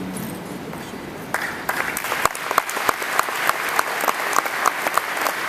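Audience applause, many hands clapping, starting about a second in and continuing steadily as the last of the music fades out.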